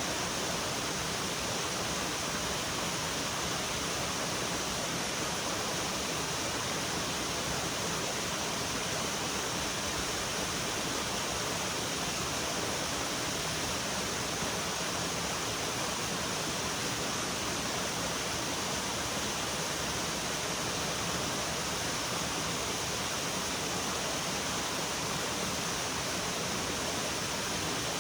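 Steady, unbroken rush of flowing water from a stream or small waterfall.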